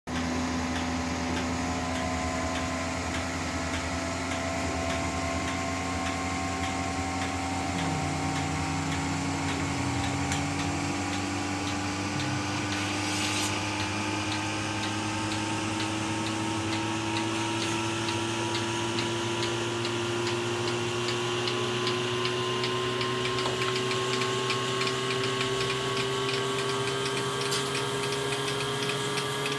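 A motor-driven machine running steadily, its hum slowly rising in pitch throughout, with a fast, even ticking over it.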